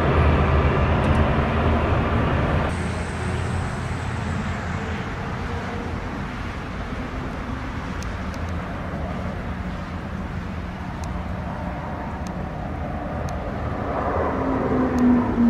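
Aircraft engines droning overhead during formation flypasts. First comes the steady hum of light propeller planes; a sudden cut about three seconds in gives way to a quieter, even rush of distant aircraft noise, which grows louder again near the end.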